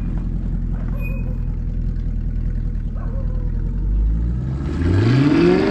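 Rear-wheel-drive car engine running steadily, then revving up sharply near the end as the driver tries to power the car out of the snow it is stuck in.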